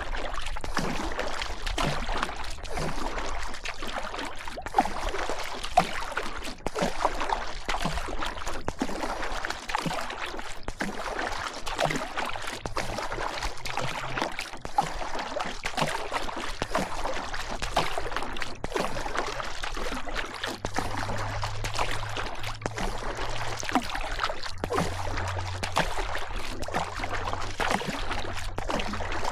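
River water rushing and splashing close by, a steady churning with many small sharp splashes and knocks.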